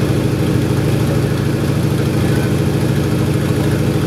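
The Antonov An-2's nine-cylinder Shvetsov ASh-62 radial engine and propeller running steadily in cruise flight, heard from inside the cabin.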